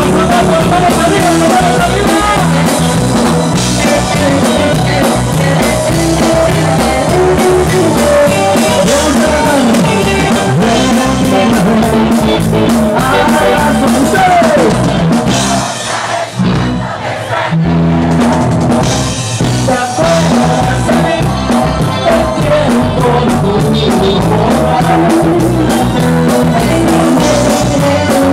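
A rock band playing live and loud through a PA: electric guitars, a drum kit and keyboard, with a singer's voice over them. Past the middle the band breaks off briefly for about two seconds, then comes back in.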